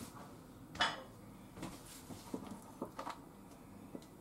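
Chopsticks knocking and clicking against a wooden cutting board and a small ceramic bowl as pieces of raw meat are picked up and moved: one sharper knock about a second in, then a string of light, irregular clicks.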